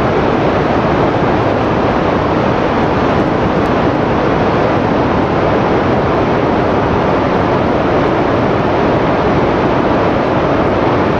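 Floodwater released from a dam rushing through a rocky gorge: a loud, steady, unbroken rush of churning water.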